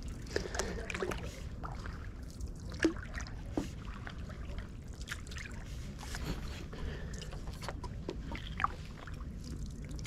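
Stand-up paddleboard paddle working through calm canal water: soft strokes, with water trickling and dripping off the blade in scattered small splashes over a low steady rumble.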